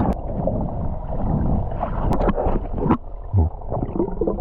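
Lake water splashing and gurgling close to the microphone, with scattered knocks.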